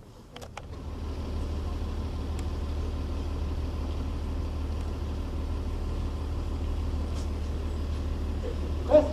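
A steady low rumble that comes in within the first second, with a faint hiss above it and a couple of faint clicks at the start; a brief voice is heard near the end.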